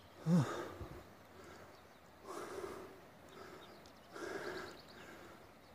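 A person breathing close to the microphone: three breaths about two seconds apart, the first a short voiced exhale with a falling pitch.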